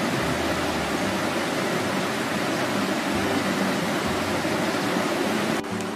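Steady rushing of flowing river water, an even hiss with no rhythm. Music starts just before the end.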